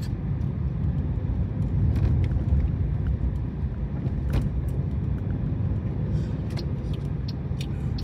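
Steady low rumble of a car's engine and tyres heard from inside the cabin while driving, with a few faint scattered clicks.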